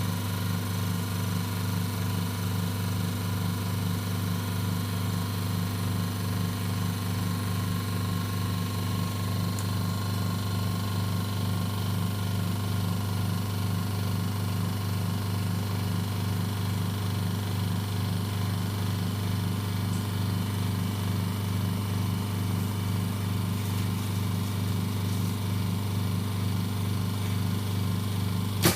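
Vacuum pump of an OCA vacuum laminator running with a steady low hum while it draws down the chamber in the vacuum-extraction stage before lamination. It shuts off abruptly at the very end.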